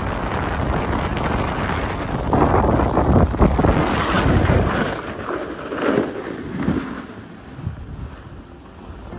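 Wind rushing over the microphone mixed with the hiss and scrape of edges sliding over groomed snow during a downhill run. The rush is loudest a few seconds in, then eases after about five seconds, with a couple of short swells.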